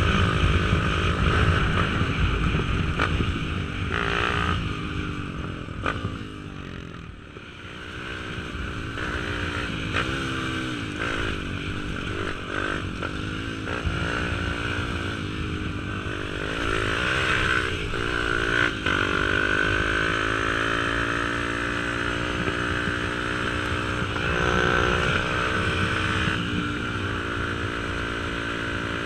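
YCF Bigy pit bike's new Daytona Anima 190 four-stroke single-cylinder engine being ridden gently during run-in, at light throttle. The engine note rises and falls with throttle and gears, easing off briefly about six seconds in, then pulling steadily through the second half.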